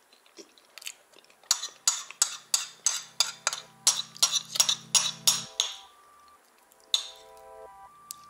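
Metal spoon clinking and scraping against a ceramic bowl while food is scooped, a quick run of sharp strokes about three a second for a few seconds, then a single clink near the end. Faint background music with held notes underneath.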